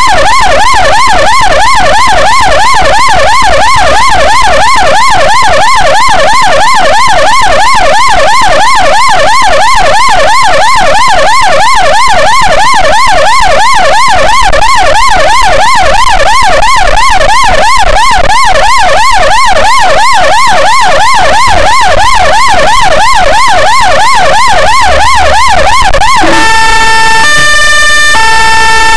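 Ambulance electronic siren sounding loudly in a fast up-and-down yelp. About 26 seconds in, it switches to a different mode of held tones stepping between pitches.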